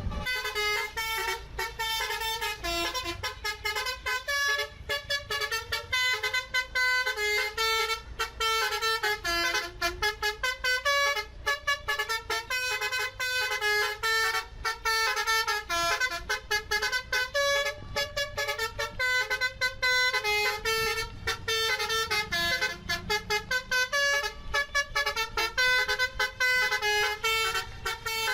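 A bus's basuri telolet horn playing a tune: a quick, unbroken string of short pitched horn notes that jump between pitches, with brief breaks between phrases.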